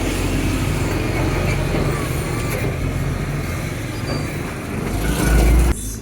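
Steady noise of road traffic and construction vehicles. Near the end a louder low rumble builds, then cuts off suddenly.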